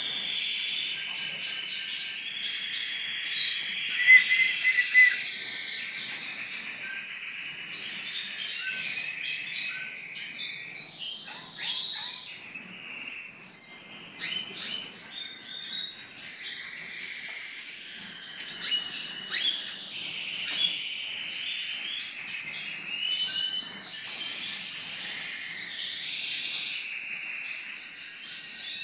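Many small aviary finches singing and chirping at once, a dense chorus of overlapping trills and twitters, with a few louder calls about four seconds in.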